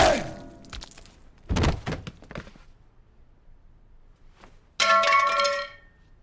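Film fight sound effects. A ringing tone fades out at the start, heavy thuds of blows come around a second and a half in, and near the end a baseball bat strikes with a sharp metallic clang that rings for about a second.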